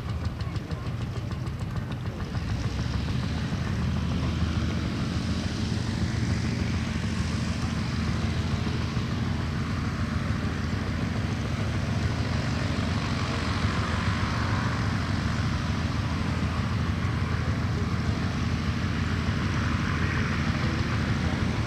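Bell UH-1D Huey helicopter running on the ground, its turboshaft engine and two-blade main rotor giving a steady noise with a fast, even low beat. The sound swells over the first two seconds, then holds level.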